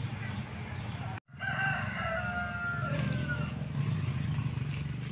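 A rooster crowing once, starting just after a brief dropout about a second in: a single long call that falls in pitch at its end, over a steady low hum.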